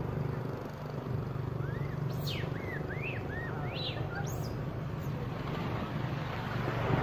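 Steady low motor hum, with a run of about eight short, high chirping calls that rise and fall, between about one and a half and four and a half seconds in.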